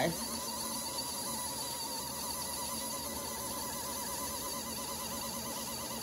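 Mini portable washing machine running: its small motor hums steadily with a regular wobble in pitch as it turns the wash load in water.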